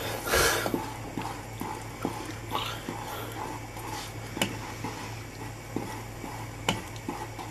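Spoon stirring and scraping a pan of thick boiling fudge mixture on the hob: a louder scrape just after the start, then scattered light scrapes and knocks over a steady low hum.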